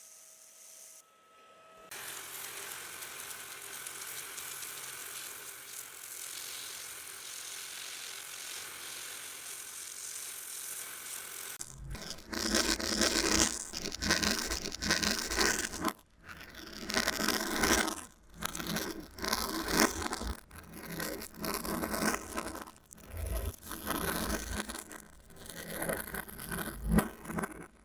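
Scraping and rasping sounds played in reverse: an even hiss, then from about twelve seconds in an uneven run of loud scrapes broken by short gaps.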